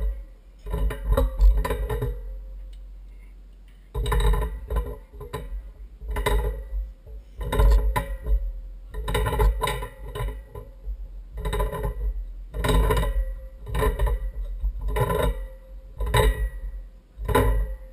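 Tongue-and-groove pliers clinking and knocking against the metal base of a well pump pressure switch as it is turned onto its threaded pipe fitting, a run of short metallic knocks about one or two a second with brief pauses.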